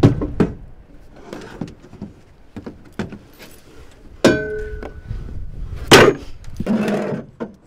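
Knocks and clunks of fladry reels and gear being handled on a pickup tailgate and trailer. A sharp metal clank that rings briefly comes about four seconds in, and the loudest bang about six seconds in.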